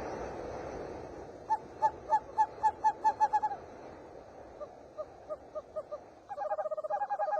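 Bird-like hooting calls, short notes on one pitch: a run of about eight that speeds up, a fainter run, then a fast, dense run near the end. A hiss of noise fades out during the first second or so.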